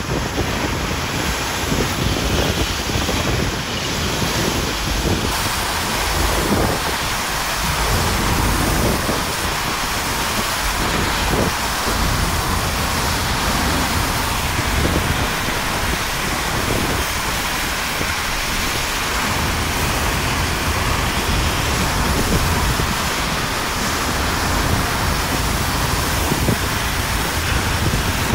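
Hurricane-force wind and driving rain blowing steadily, with gusts buffeting the microphone in uneven low rumbles.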